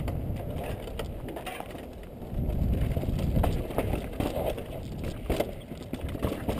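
Mountain bike rolling fast down a dry dirt singletrack: a steady rumble of tyres on dirt and wind on the helmet-mounted microphone, with a few sharp knocks and rattles from the bike over rocks and bumps.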